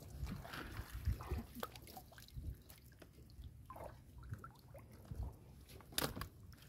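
Small drips, splashes and wet rustles as floating lily pads are handled and lifted out of the water, with scattered low thumps and a sharp knock about six seconds in.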